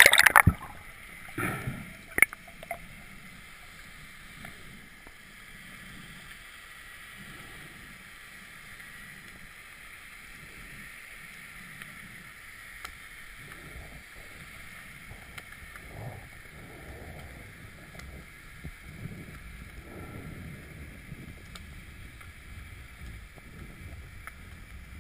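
A splash and rush of water as the camera goes under, then the muffled, steady hiss of water heard through an underwater camera housing, with faint soft swishes of movement.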